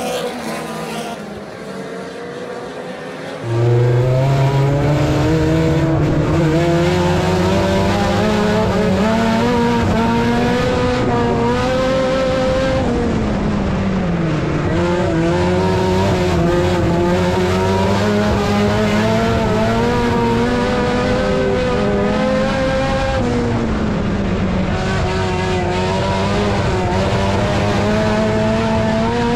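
Dirt-track race cars running, heard from the stands for a few seconds. Then, from inside one race car, its engine at speed, loud and steady in pitch, dipping and climbing back twice, about ten seconds apart, as the car goes through the turns.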